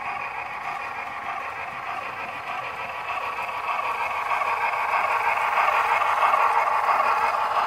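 Model train running on layout track: a Union Pacific 3985 Challenger steam locomotive model pulling loaded coal hoppers, its motor, gearing and wheels making a steady whirring rumble. It gets louder from about halfway through as the engine and cars pass close by.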